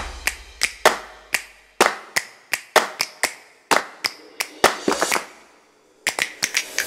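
A run of sharp, clap-like percussive hits, about three a second, each ringing off briefly, over a low hum for the first couple of seconds. The hits pause around five seconds in, then return faster near the end.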